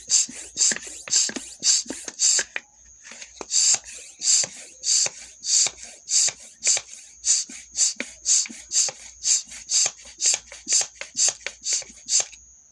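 Bicycle pump worked in quick strokes, each stroke a short hiss of air, about three a second, with a short pause about two and a half seconds in. A thin, steady high whistle runs beneath the strokes.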